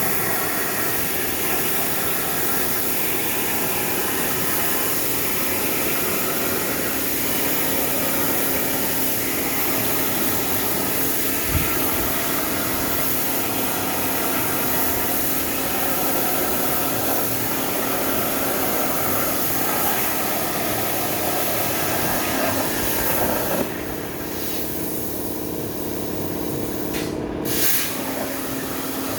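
CNC plasma torch cutting plate, a steady loud hiss over the hum of the table's running machinery; the hissing arc cuts out about 24 seconds in, flares briefly again near the end, and leaves the machine hum running.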